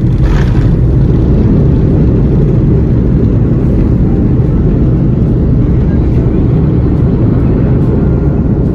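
Airliner landing roll heard from a cabin seat beside the wing: a loud, steady, deep rumble of the engines and the wheels on the runway.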